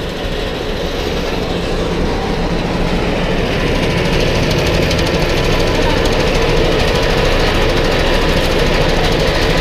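Small engine of a sugar cane juice press running steadily, driving the steel rollers as cane stalks are fed through them. It grows louder about four seconds in.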